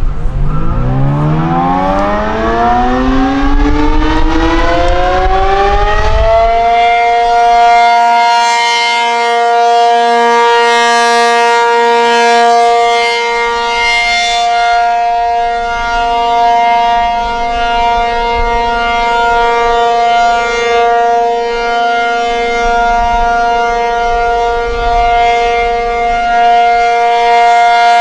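ACA P-50 electromechanical tornado siren winding up, its pitch rising steadily for about six seconds, then holding one steady tone for the alert signal. The upper tones swell and fade at times.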